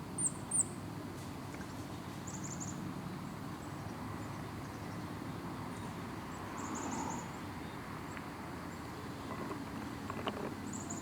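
Small bird calling high-pitched: two sharp chirps about half a second in, then short rapid high trills a few times, over a low steady background noise.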